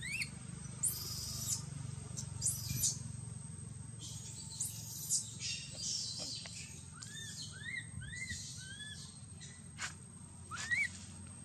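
Baby macaque crying with short, high, arching whimper calls: one at the start, a run of four or five about seven to nine seconds in, and one more near the end. Several short bursts of high hiss come in the first half.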